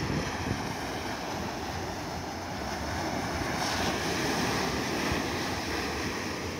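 Small sea waves breaking and washing up onto a sandy beach: a steady surf hiss that swells a little about halfway through as foam runs up the shore.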